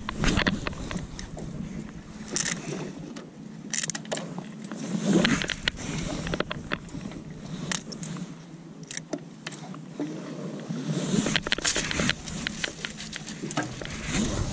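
Green crabs being handled on a boat's plastic bait board: irregular clicks, cracks and scrapes of crab shell on the board, over a steady low hum.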